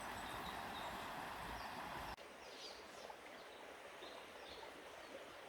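Outdoor background with a steady noisy rush that cuts off abruptly about two seconds in, leaving a quieter background with a few short, high bird chirps.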